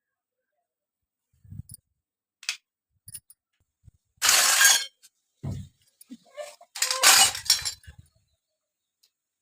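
Small toy kitchen pieces and their packaging being handled: a few light clicks and clinks, with two louder rattling clatters about four and seven seconds in.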